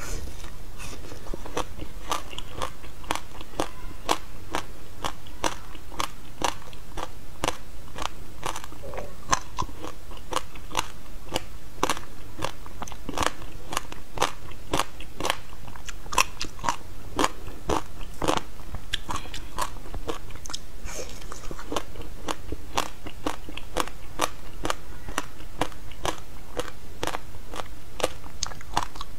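A person biting and chewing a frozen slab of shaved ice set with passion fruit and its seeds, close to a clip-on microphone: a steady run of sharp crunches and crackles, about two a second.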